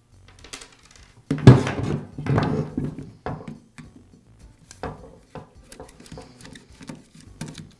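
Screwdriver and angle-drill housing clattering against each other and the bench while the motor brushes are taken out: a loud knock a little over a second in, then scattered clicks and scrapes of the screwdriver working at the brush cap.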